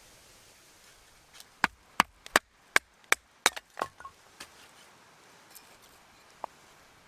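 Firewood being chopped or split with a blade: a quick run of about six sharp wooden strikes, roughly three a second, a couple of softer knocks after, and one more strike near the end.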